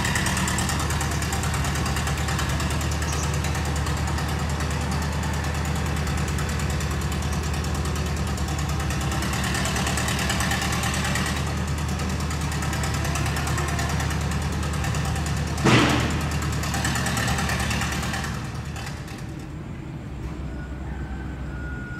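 An engine running steadily with a low hum. A brief loud rush of noise comes about 16 seconds in, and the hum fades down about 19 seconds in.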